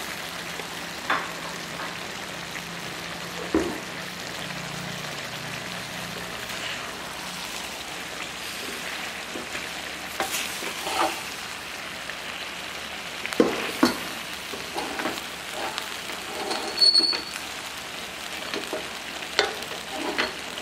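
Pieces of smoked manyung fish, tofu and tempeh sizzling in a stainless steel wok while a wooden spatula stirs them. Short scrapes and knocks of the spatula against the pan come at irregular moments, the loudest about two-thirds of the way through.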